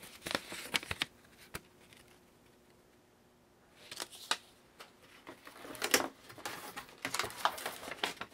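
Paper instruction leaflets being handled and leafed through: scattered rustles and light clicks, with a quiet stretch of a couple of seconds in the middle.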